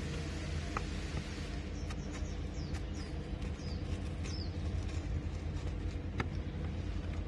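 Snap-off utility knife cutting along a paper template on a car dashboard, giving scattered small clicks and scrapes, with a few short high squeaks in the middle, over a steady low hum.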